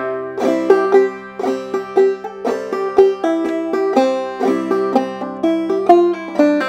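Open-back banjo played clawhammer style at a slow, even pace: single plucked notes and brush strokes with hammer-ons and pull-offs, a few notes a second. The last note is left ringing near the end.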